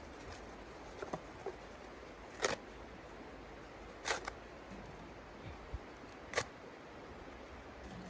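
Kindling being handled and placed inside a small steel tent stove's firebox. A few short, sharp scrapes and knocks, the loudest about two and a half seconds in, with fainter clicks before it and a soft thud near the end.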